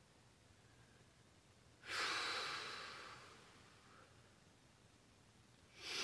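A woman's long, heavy sigh about two seconds in, loud at first and fading away over about two seconds, then a short breath near the end.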